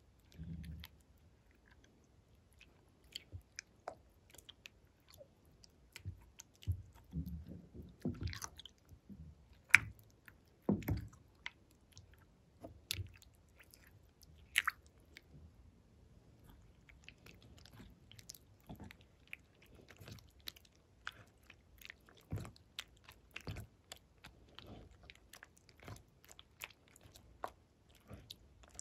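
Thick glossy slime being stirred with a silicone spatula in a glass bowl, then squeezed and kneaded by hand. It gives irregular small sticky clicks and pops with a few soft low squelches.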